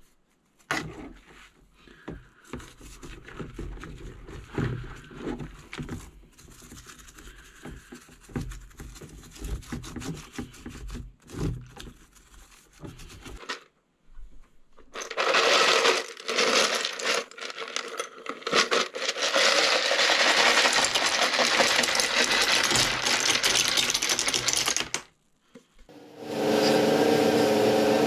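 A keyboard's bare key plate is handled and washed in a tub of soapy water, with irregular knocks, clunks and splashes. After a short gap, a flex-shaft rotary tool with a small brush wheel scrubs plastic keycaps in the water: a loud, dense rasping whir for about ten seconds. Near the end comes a steady humming whine of the tool's motor.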